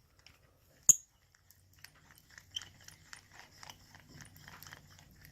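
A sharp click, then a hurdy-gurdy hand-cranked tubular key cutter shaving a cut into a brass tubular key blank: a rapid run of small crunching scrapes, about four a second.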